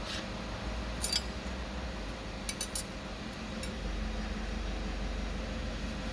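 Light metallic clinks of clutch plates being handled and set into a JF506E automatic transmission's aluminium case: one about a second in, a quick run of three near the middle, and one more shortly after, over a steady low hum.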